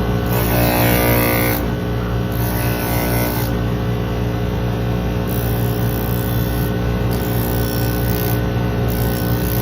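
Shoe repair finishing machine running with a steady hum, while a knife blade is pressed against its abrasive wheel in about five strokes of a second or so each, each stroke a hissing grind, to sharpen it.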